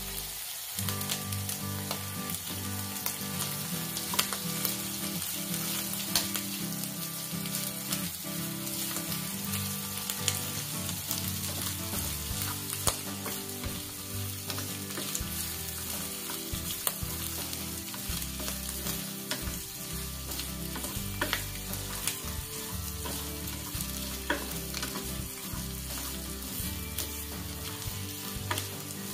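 Snail meat with garlic and green chilli sizzling as it fries in butter in a small frying pan, with frequent small pops, while a wooden spatula stirs and scrapes it around the pan.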